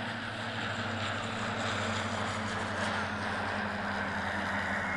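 A steady low mechanical hum with a hiss over it, unchanging in pitch.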